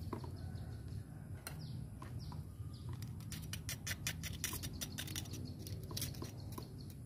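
A metal spoon scraping and clicking against an oyster shell as it is pried open by hand. Scattered at first, then a quick run of small clicks and scratches about three to six seconds in.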